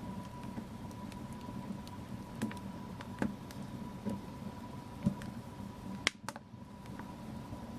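Wood fire crackling in a fireplace: a steady low rush of flame with scattered sharp pops and snaps, a few louder than the rest, and a brief drop in the sound about six seconds in.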